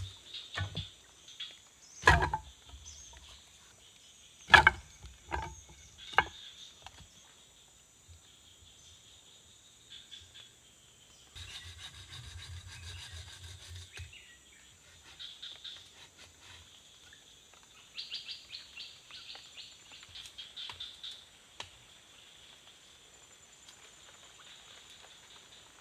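A handful of sharp knocks of bamboo being struck or set down during shelter building, mostly in the first six seconds, the loudest two about two and a half seconds apart, followed by quieter rubbing and handling. Forest insects buzz steadily behind, with a burst of rhythmic chirping near the end.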